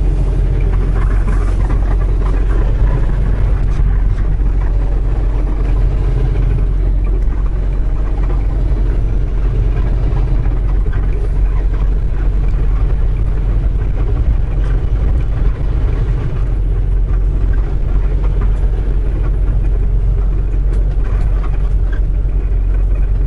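Semi truck under way: the steady low rumble of its diesel engine mixed with road noise.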